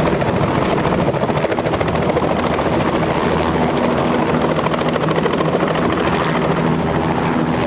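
Robinson R66 helicopter lifting off and flying low past, its rotor chop and Rolls-Royce turbine engine running steadily and loudly.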